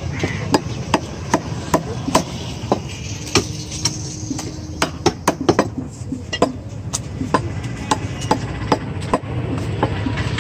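Butcher's cleaver chopping goat meat on a wooden stump block: sharp, steady strikes about two to three a second, with a quicker run of blows about five seconds in.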